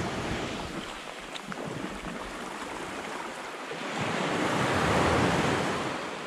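Sea surf washing up a sandy beach, one wave swelling up and falling away about four to five seconds in, with wind buffeting the microphone.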